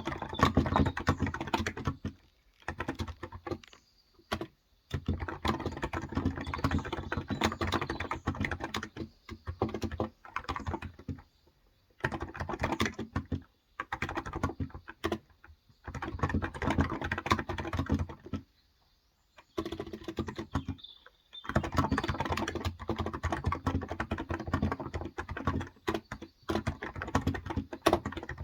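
Typing on a Cox Endeavor electro-capacitive (Topre-style) tenkeyless keyboard with light 35 g keys: fast runs of soft key strokes in bursts of several seconds, broken by brief pauses.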